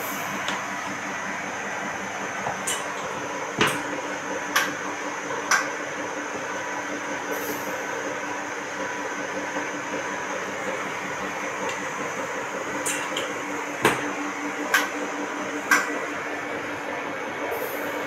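Wax injection machine's electric motor running steadily, a constant hum with a steady tone and hiss. About ten sharp clicks come scattered over it.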